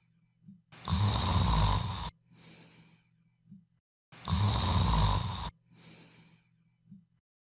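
A person snoring in a slow rhythm: two loud snores about three and a half seconds apart, each followed by a softer breath.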